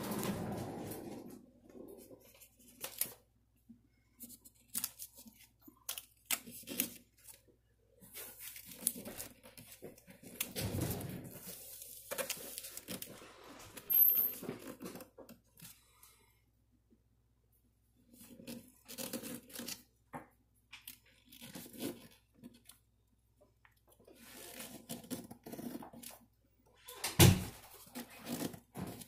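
Contact paper being handled, with intermittent rustling and tearing sounds as the sheet is worked by hand. Scattered small clicks run through it, and there is a heavy knock near the end.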